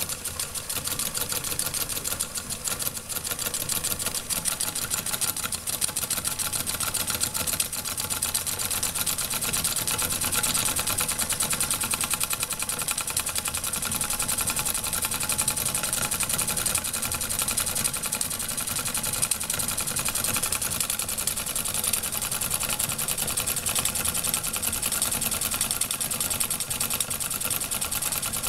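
Weeden No. 14 toy steam engine running steadily under steam: a fast, even clatter from its small piston and valve gear.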